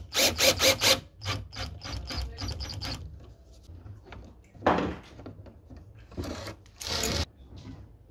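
Cordless drill driving a wood screw into a plywood shelf, with a rapid run of sharp clicks in the first second as the screw goes home. Then a screw is turned by hand with a screwdriver, with a few scraping strokes of metal on wood.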